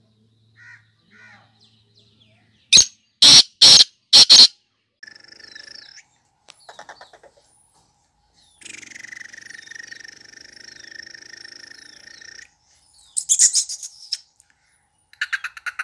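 Black francolin calling: a run of four loud, harsh notes in quick succession about three seconds in, and more loud rapid notes near the end. A steady, even sound lasts about four seconds in the middle.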